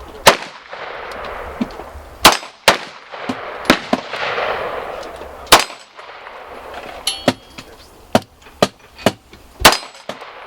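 Pistol shots fired one at a time at irregular spacing, about ten in all, with a haze of echo between them.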